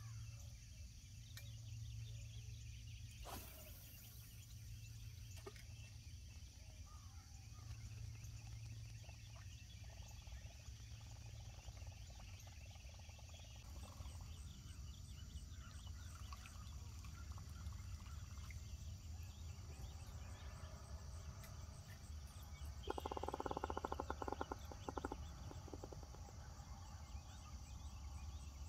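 Quiet early-morning pond ambience: many faint animal chirps and calls over a low steady hum. There is a single click about 3 seconds in, and a louder, rapid rattling sound lasting about two seconds near the end.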